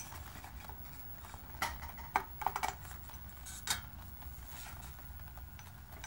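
A few short clicks and clinks of a glass vacuum tube, a high-voltage rectifier, being handled and pushed into its socket inside a TV chassis's metal high-voltage cage, over a steady low hum.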